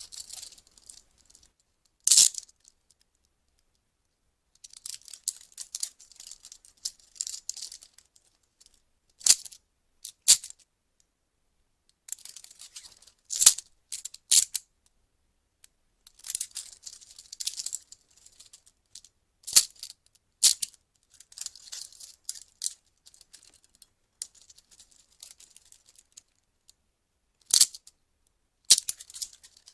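Metal police handcuffs being worked: runs of rapid ratchet clicking as the cuffs are closed, broken up by single sharp metallic clacks, with silent pauses between.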